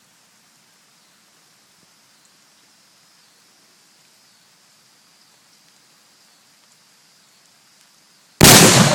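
Faint steady hiss, then near the end a sudden, very loud blast: a homemade PVC-pipe sparkler bomb exploding inside a microwave and blowing it apart.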